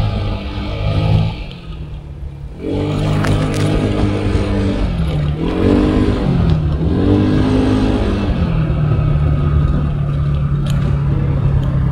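Vehicle engine running under way, its pitch falling and rising as it slows and speeds up: it eases off about two seconds in, picks up again, dips twice more around the middle, then runs steady.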